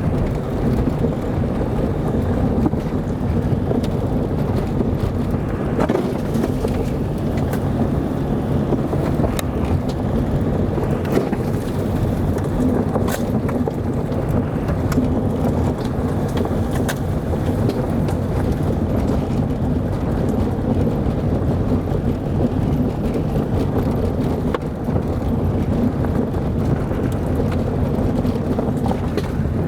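Car driving: steady engine and road noise with wind on the microphone, and occasional sharp ticks.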